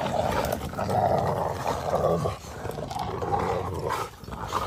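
Dogs growling in play while tugging on and chewing a stick, a rough, continuous growl that is loudest in the first couple of seconds and then eases off.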